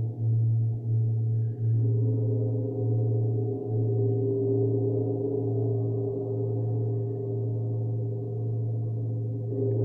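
Large Tibetan gong played with a soft mallet: a deep sustained hum, pulsing with repeated soft strokes at first, with higher ringing overtones that swell in about two seconds in and then hold steady.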